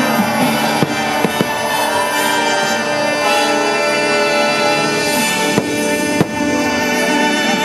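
Fireworks show music playing loudly, with firework shells bursting over it: a few sharp bangs in the first second and a half and two more past the middle.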